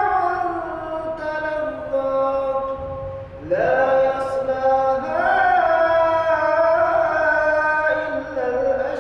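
An imam's melodic Quran recitation in Arabic: one man's voice chanting long, drawn-out notes that bend slowly in pitch. There is a brief pause about a third of the way in, then the next phrase starts on a rising note.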